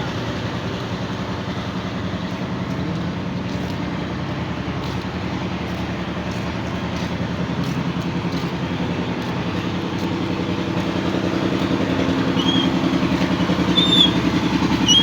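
Motorcycle engine running steadily, growing louder over the last few seconds, with a few short high chirps near the end.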